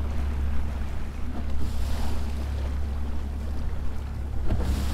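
Outboard motor of a panga running under way, a steady low drone, with water rushing along the hull and wind on the microphone. The rush of water and wind swells twice, about two seconds in and near the end.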